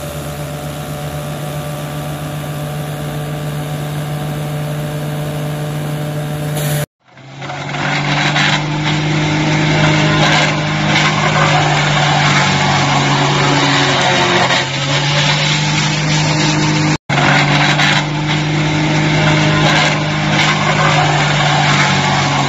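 Engine-driven wood crusher running steadily with a low hum. About seven seconds in, a small wood chipper takes over, grinding a wooden stick into chips with a louder, rougher noise that dips and swells as the wood is fed.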